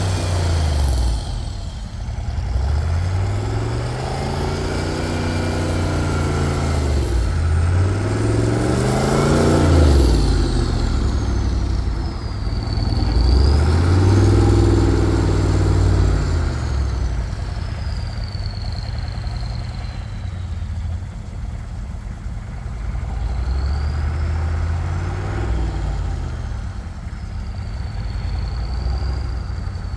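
A vehicle engine revving up and dropping back again about five times, with a high whine that rises and falls with the engine speed.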